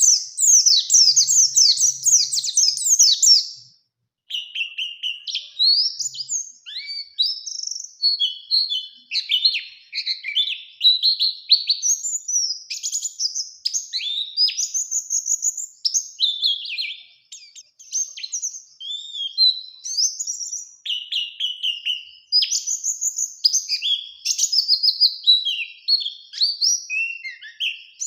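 A white-eye (pleci) sings long and energetically: rapid high chirps, trills and sharp whistled notes follow one another almost without pause. The song opens with a loud fast run, breaks off briefly about four seconds in, and then goes on in varied phrases to the end. This is the loud, sustained song that pleci keepers call gacor and ngerol.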